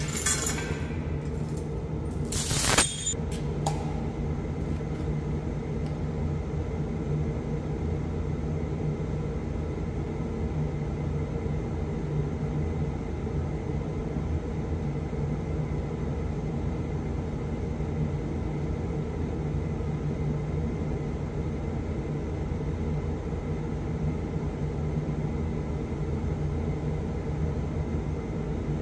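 Kukje AF350 tractor engine running steadily at idle, with one sharp metallic clank about three seconds in.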